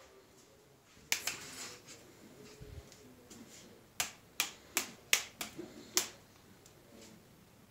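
Plastic toy light-up swords clacking against each other in a mock sword fight: a quick flurry of hits about a second in, then about half a dozen sharp cracks in quick succession.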